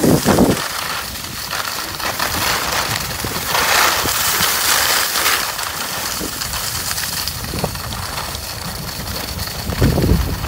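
Salomon S/Race skis sliding and scraping over groomed snow, a steady hiss that grows stronger around the middle. Bursts of low rumble come at the start and again near the end.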